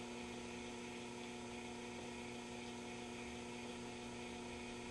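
Steady mains hum from the speaker of a GE 212 vacuum-tube radio, several low tones held level, as the freshly recapped set is brought up at reduced voltage on a variac: its first sign of life, with no station tuned.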